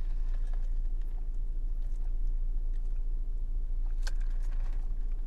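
Faint close-up chewing of food over a steady low electrical hum, with one short click about four seconds in.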